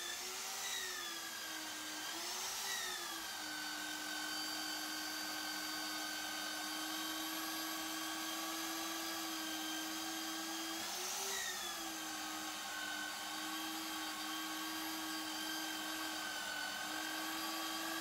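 Magnetic drill's motor whining steadily as its cutter bores through a 16 mm steel plate, the pitch wavering briefly a few times. The cutter is being pushed hard, which strains it.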